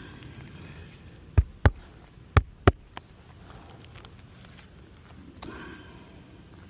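Four sharp knocks in two quick pairs, about a second and a half in, with a short scraping rustle near the end.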